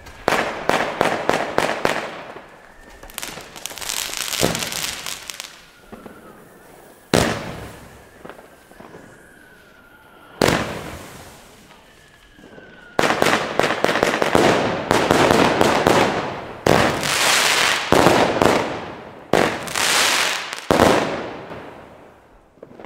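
Weco Superfly consumer fireworks battery (45 shots, 20 mm calibre) firing: quick runs of launch thumps and star bursts in uneven waves, with crackling glitter, the densest and loudest run in the second half.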